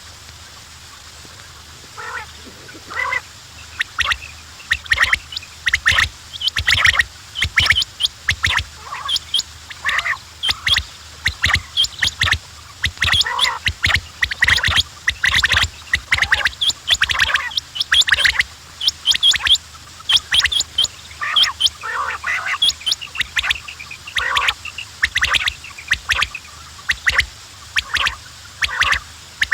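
Quails calling: a dense, continuous run of short, sharp calls that starts about two seconds in.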